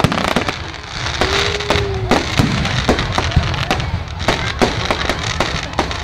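Fireworks display: aerial shells and cakes going off in a fast run of sharp bangs and crackles, two or three a second, over a low rumble.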